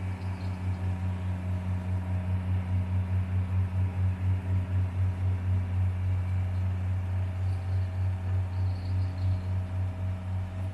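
Diesel engine of heavy road-construction machinery running steadily under load, a low drone that pulses about four times a second.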